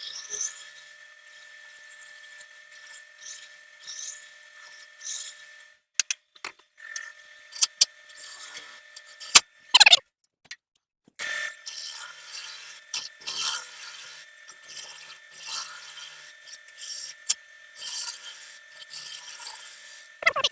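Woodturning lathe running with a steady motor whine while a turning tool scrapes and cuts the spinning wood in repeated strokes. Twice the sound breaks off briefly, the second time after a quick drop in pitch.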